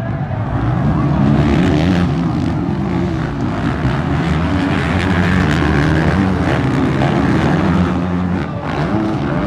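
Several motocross bikes racing together, their engines revving and changing pitch, rising and falling as the riders work through the gears.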